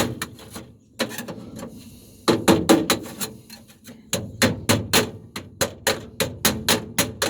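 Hammer blows on sheet metal, in quick runs of sharp strikes at about four to five a second, with short pauses between runs. This is the panel being knocked to break it free at its drilled-out spot welds.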